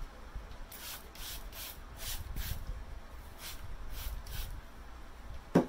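Handheld plastic spray bottle misting water onto hair: a series of short hissing sprays in two runs, with hair being handled between them. A single sharp knock near the end is the loudest sound.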